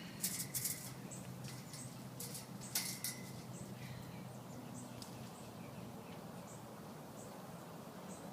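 A few sharp clicks and knocks in the first three seconds, then short, faint high chirps repeating every half second to a second over a steady low hum.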